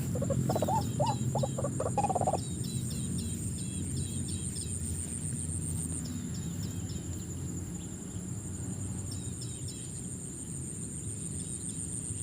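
White-breasted waterhen calling in the first two seconds or so, stopping abruptly. Small birds chirp in short runs over a steady, high-pitched insect drone.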